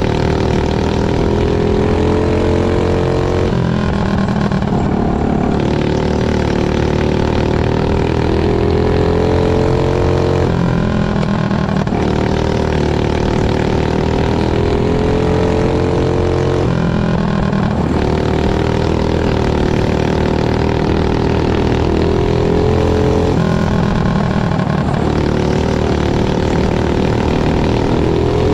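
Flat kart's engine running hard at racing speed, heard from the driver's seat. Its note breaks and changes briefly about every six or seven seconds, four times, going round the oval.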